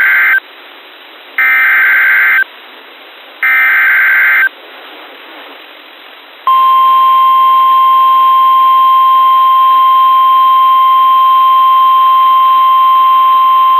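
Three EAS SAME header data bursts, each a harsh warbling screech about a second long and a second apart, the first already under way. After a pause of about two seconds comes the steady 1050 Hz NOAA Weather Radio attention tone, starting about six and a half seconds in and holding to the end. Together they signal the start of a severe thunderstorm warning broadcast.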